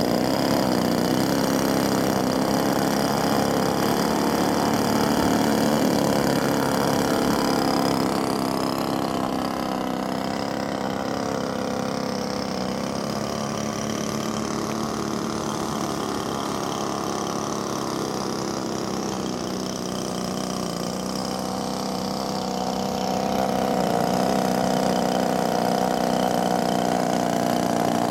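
Engines of a radio-controlled scale-model C-119 gunship running at low throttle while it taxis. The note is steady, fades somewhat through the middle and grows louder again near the end.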